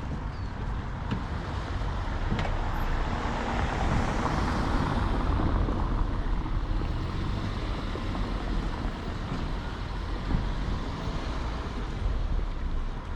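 A car passing on the street: tyre and engine noise swells about four seconds in and then fades, over a steady low rumble of traffic.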